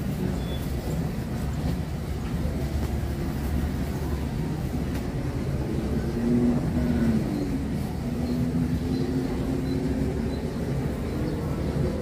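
Motor vehicle engine running steadily over a low rumble, its note shifting a little around seven seconds in.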